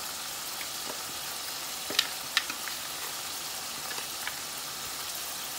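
Ground meat sizzling steadily in hot oil in a nonstick frying pan, with a couple of sharp clicks about two seconds in.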